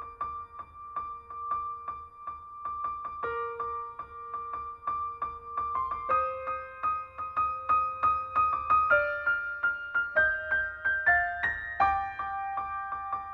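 Background music: quick, evenly repeated notes over held tones, with the melody stepping upward through the second half before settling.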